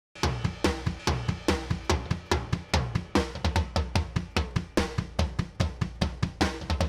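Background music: a fast, steady drum-kit beat of kick and snare over a repeating bass line, starting abruptly from silence.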